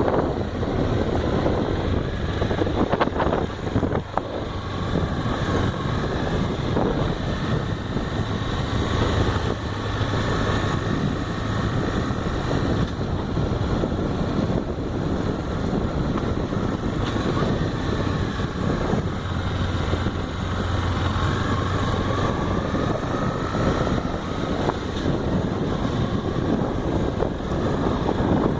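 Honda XRE motorcycle's single-cylinder engine running on the move, its pitch slowly rising and falling with the throttle, under steady wind noise on the microphone.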